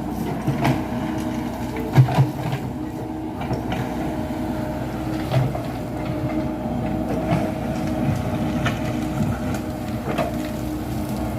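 Komatsu PC78 hydraulic excavator's diesel engine running steadily as the machine works, with scattered short knocks and clanks from the working machine, the loudest two about two seconds in.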